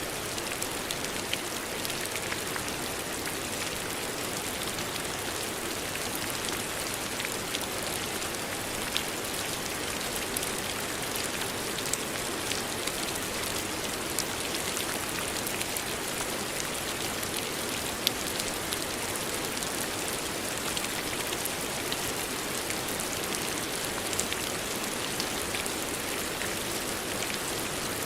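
Steady rain falling, an even hiss with scattered drops pattering sharply on a surface.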